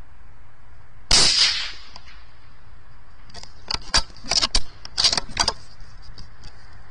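A single shot from a moderated CZ455 bolt-action rifle in .17 HMR about a second in: a sharp crack that dies away quickly. A couple of seconds later comes a run of quick metallic clicks and clatters, the bolt being worked to chamber another round.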